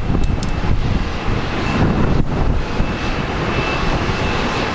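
Jet engines of a taxiing regional jet, a steady rumble with a faint high whine running through it.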